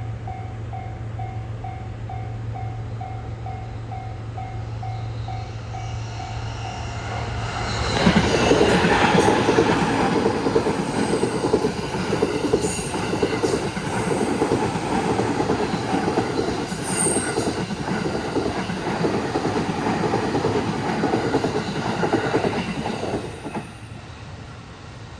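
A level-crossing warning bell rings in an even beat, about two strikes a second. About eight seconds in, a JR E231 series 1000 electric multiple unit suddenly passes through the crossing, loud. Its wheels run over the rails for about fifteen seconds, drowning out the bell, then the noise falls away near the end.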